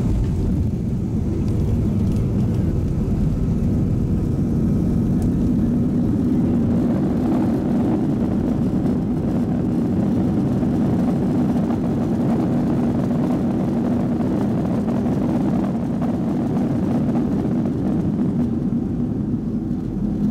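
Boeing 737-200's Pratt & Whitney JT8D jet engines and landing roll, heard from inside the cabin: a steady loud rumble that grows stronger about six or seven seconds in as the target-type thrust reversers deploy and reverse thrust is applied, then runs on steadily.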